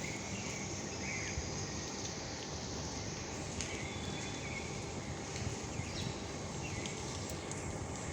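Outdoor ambience after rain: a steady background hiss with a few short bird chirps scattered through it.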